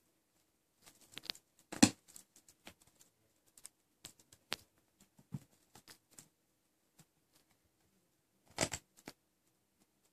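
A kitten clawing and scrabbling at a cotton pillow: scattered light scratches and fabric rustles, with two louder scuffs, one about two seconds in and one near the end.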